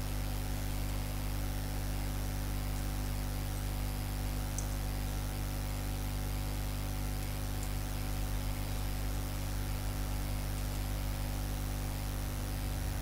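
Steady electrical hum with hiss, the background noise of the recording microphone, with a few faint ticks.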